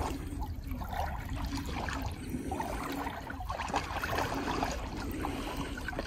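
River water gently lapping and sloshing around a swimmer moving slowly through it, close to the microphone.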